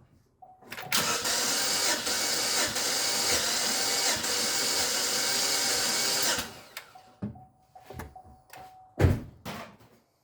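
Starter motor cranking the Chevy Equinox's V6 engine steadily for about six seconds during a compression test on cylinder 4, the misfiring cylinder that reads low, about 150. After it stops come a few light clicks and one sharp knock near the end.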